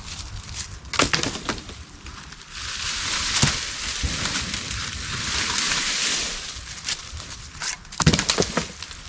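Dry wooden sticks snapping and crackling amid rustling leaf litter as the ribs of a debris shelter are pulled apart, with a cluster of sharp snaps about a second in and another near the end.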